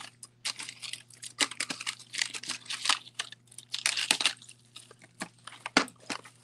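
Strands of Czech glass beads clicking and rustling as they are pulled from clear plastic tubs and laid into a small plastic tray: an irregular run of short clicks and crinkles.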